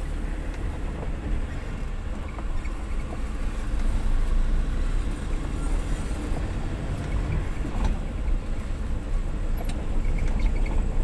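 Steady low engine and road rumble heard from inside a vehicle's cabin as it drives slowly over a rough dirt track.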